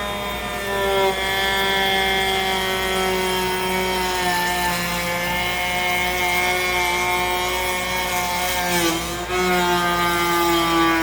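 Electric power tool motor running at high speed, a steady whine that dips briefly in pitch about nine seconds in, as if loaded by the wood, then recovers.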